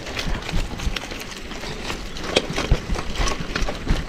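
Bicycle rattling and knocking as it rolls over bumpy grass, heard through a camera mounted on its handlebars: an uneven clatter of small knocks, a few of them louder in the second half.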